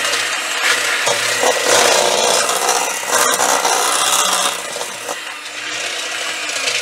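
A SHAMI electric hand mixer running, its beaters churning a thick creamed butter, sugar and egg-yolk cake mixture and scraping around a metal bowl. A loud, steady motor hum sits under a grainy scraping noise.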